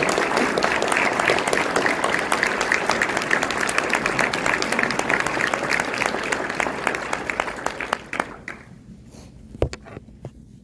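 Audience applauding, a dense patter of many hands clapping that dies away about eight seconds in, followed by a single brief knock near the end.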